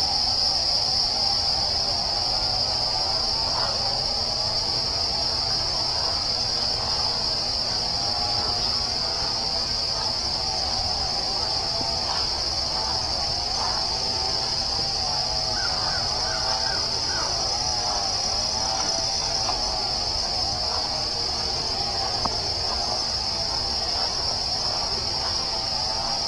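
A steady high-pitched chorus of crickets, with birds calling over it again and again and a faint low rumble underneath.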